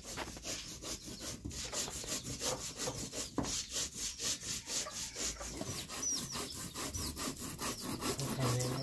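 A stone roller rubbed quickly back and forth on a flat stone grinding slab (sil-batta), crushing spices: an even, gritty scraping at several strokes a second. Small birds chirp in the last few seconds.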